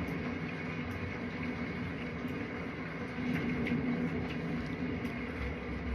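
Steady room hum with a few faint, soft clicks.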